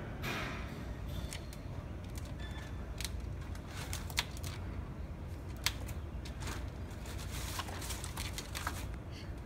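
Paper bags and trash in a plastic bin rustling and crackling as a bird picks through them, with scattered sharp clicks (two sharper ones about four and six seconds in) over a steady low rumble.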